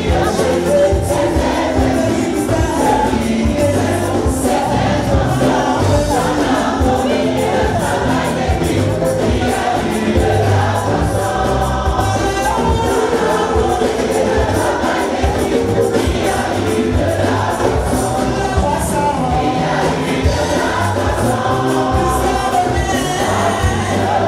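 Gospel choir and congregation singing a praise song with a live band, with a steady bass beat.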